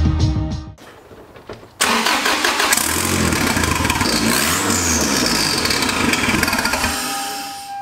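The turbocharged 2.4 L 2RZ-FE four-cylinder of a first-gen Toyota Tacoma starting abruptly about two seconds in, then revving up and down. A high whine falls in pitch as the revs drop, and the sound fades near the end.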